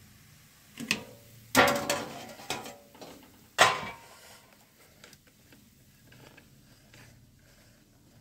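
Metal cookware clanking as an aluminium steamer plate and pot are handled and set in place: four sharp knocks with a brief metallic ring in the first four seconds, the loudest about a second and a half in and just before four seconds, then only faint light clicks.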